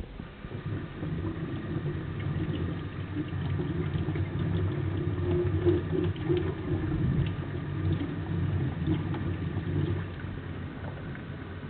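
Tap water running over raw chicken pieces held in the hands and splashing into a stainless-steel sink, a steady low rumble with small wet clicks from the handling. It eases near the end.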